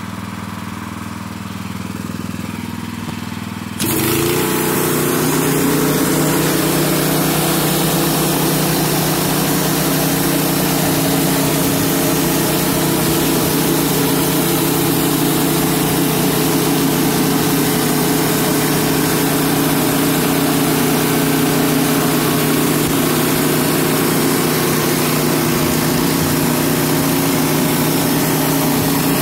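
Pressure washer engine running steadily; about four seconds in, the 15-inch surface cleaner's spinning spray jets come on against the concrete, adding a loud steady hiss over the engine's hum as it loads up.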